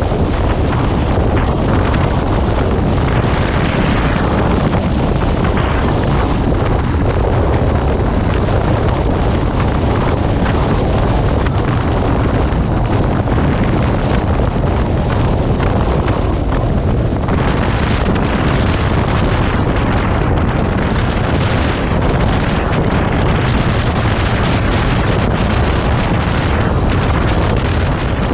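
Loud, steady wind rush buffeting the microphone of a motorcycle riding at road speed, with engine and road noise mixed in beneath it.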